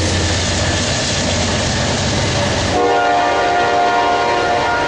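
Double-stack container train passing at speed, its cars making a steady rushing rail noise. About three seconds in, a locomotive horn comes in, a steady chord held through the rest.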